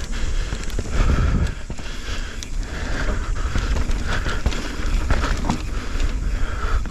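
Mountain bike riding fast down a dirt forest trail: a steady low rumble from the tyres and wind, with many sharp rattles and knocks from the bike over bumps and roots.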